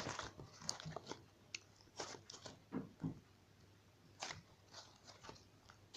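Slime being squeezed and worked by hand: irregular short squishes and crackles.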